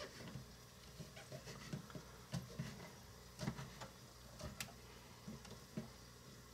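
Small kitchen knife chopping portobello mushroom on a small wooden cutting board: faint, irregular taps of the blade on the board, about two or three a second.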